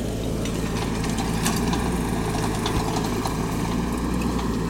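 Mini excavator's engine running steadily, with scattered light clicks and knocks over it.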